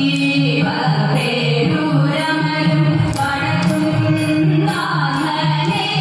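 Thiruvathira song: a devotional South Indian melody sung in held notes that step up and down, with musical accompaniment, keeping time for the Thiruvathira kali circle dance.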